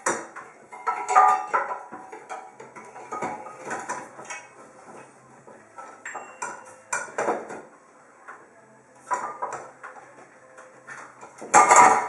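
Hunter ceiling fan motor housing knocking and clattering against its ceiling mounting bracket as it is hung in place, in irregular clanks and rattles. The loudest clatters come about a second in and again near the end.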